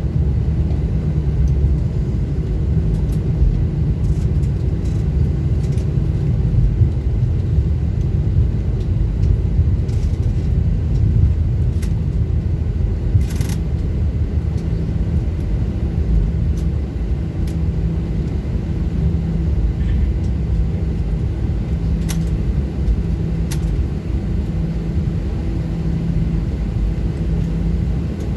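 Airbus A320 cabin noise while rolling out after landing and turning off the runway: a steady low rumble of the engines and the wheels on the pavement, with a faint steady hum and a few sharp rattles or clicks.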